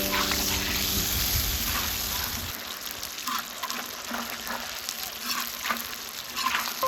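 Food sizzling in oil on a cast-iron cauldron lid, a steady hiss with scattered small pops and crackles. A low rumble underneath drops away about two and a half seconds in.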